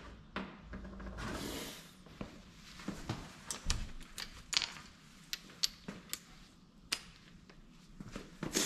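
Irregular metallic clicks and clinks of hand tools working bolts on a Renault J7R engine block, with a brief rustle about a second in.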